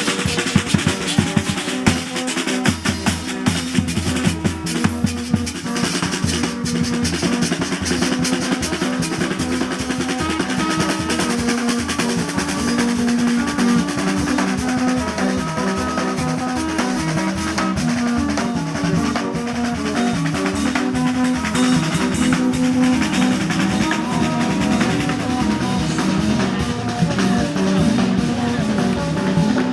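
A marching street band playing. Drums and percussion lead for the first few seconds, then held horn notes carry a tune over the beat.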